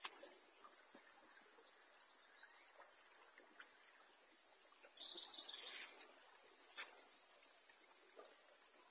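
Steady, high-pitched chorus of insects in the trees, with a few faint scattered ticks and a short falling chirp about five seconds in.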